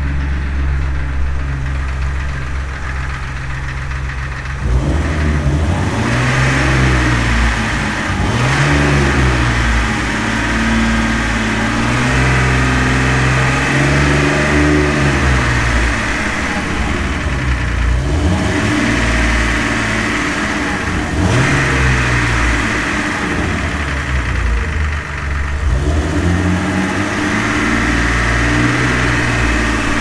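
Jeep Wrangler TJ's 4.0-litre straight-six running with its serpentine belt removed, so the belt-driven accessories are stopped. It idles steadily, then from about five seconds in is revved up and down several times. This is a check on whether the odd engine noise comes from the engine itself or from the accessories, and the owner doesn't think he hears the noise.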